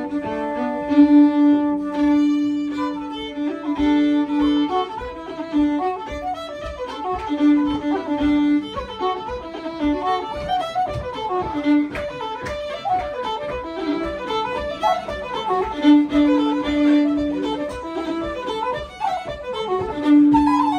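Irish fiddle and wooden flute playing a reel together, a fast run of melody notes in unison.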